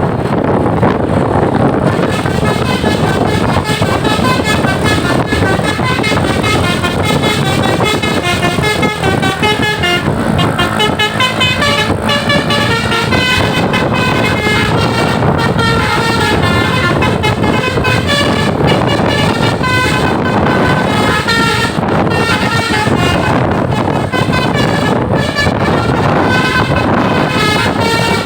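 A tour bus's basuri (telolet) multi-tone air horn playing a tune of stepping tones, starting about two seconds in and running on without pause over a steady loud noise.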